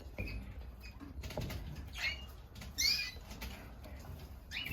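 Canaries fluttering and hopping about a breeding cage, with rustles and light taps and a few short chirps, the loudest about three seconds in.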